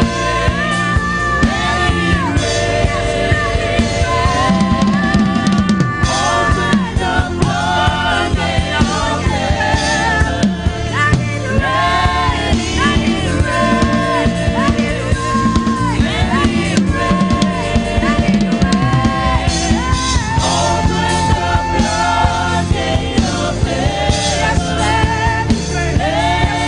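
Gospel worship song: voices singing a melody over a band with a drum kit keeping a steady beat.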